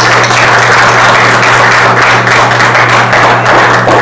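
Congregation applauding: many people clapping at once in dense, steady applause, over a steady low hum.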